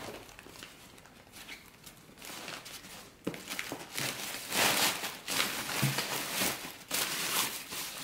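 Rustling and crinkling of a nylon drawstring bag liner and plastic-wrapped groceries as an insulated shopping bag is opened and unpacked, in irregular bursts that get louder from about three seconds in.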